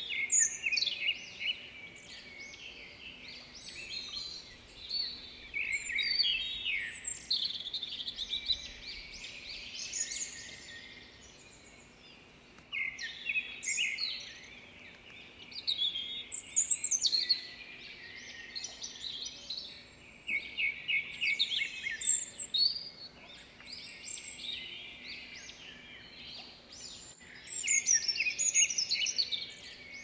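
A chorus of songbirds: many overlapping chirps, whistles and rapid trills, swelling in loudness every few seconds.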